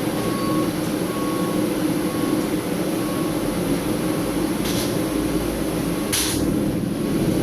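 Blacksmith's forge running with a steady roar, with a faint short beep repeating about once a second and two brief hisses near the end.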